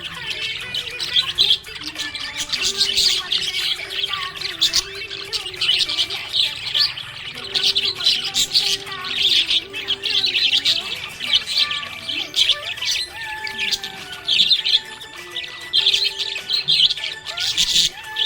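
Budgerigar chirping and warbling, a dense, continuous run of quick high chirps.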